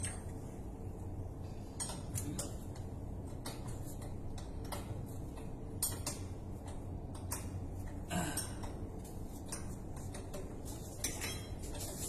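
Scattered sharp metal clinks and taps of hand tools working a steel pipe fitting, over a steady low machinery hum.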